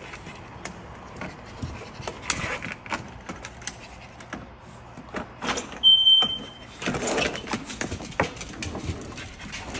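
A sliding door being worked open, with scattered clicks, knocks and rattles of handling. A short, high, steady squeak about six seconds in is the loudest sound, followed by a scraping rush.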